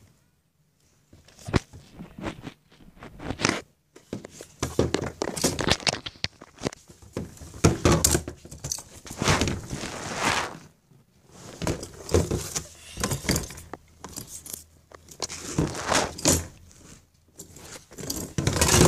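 Close, irregular knocks, scrapes and rustling as a plastic storage bin and toys are handled right by the microphone. The noise starts about a second in and goes on in uneven bursts with short pauses.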